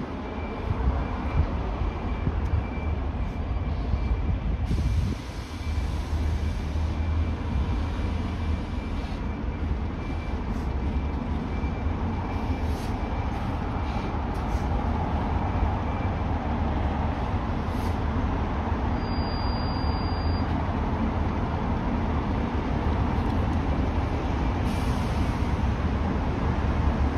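Diesel bus and coach engines running as buses pull in and out of the station, with several short hisses of air brakes.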